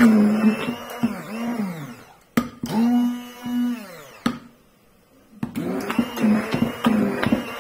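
Electric immersion blender mixing thick cake batter in a bowl, run in short bursts: the motor spins up, then its pitch sags as it is let off, again and again. It goes quiet for about a second in the middle, then starts up again.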